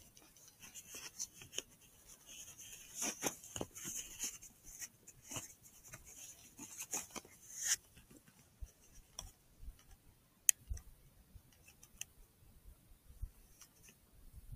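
Faint, irregular clicks and rustles over a high hiss that cuts off suddenly about eight seconds in: handling noise picked up by the thermal riflescope's own microphone.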